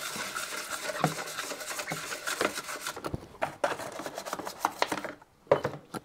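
Stiff brush scrubbing a plastic washing-machine soap dispenser box wet with descaler, working limescale out of its joints and jets: a scratchy rubbing with a few sharp knocks of plastic on plastic.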